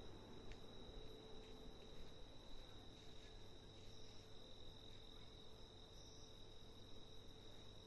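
Large insect the uploader calls a giant locust, calling faintly: a steady high-pitched tone with a faint rapid pulsing above it, and a brief higher chirp twice, about two seconds apart.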